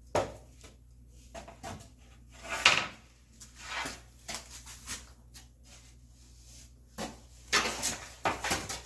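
Wooden boards handled on a workbench: a few separate wooden knocks, the loudest about two and a half seconds in, then a cluster of clattering knocks near the end.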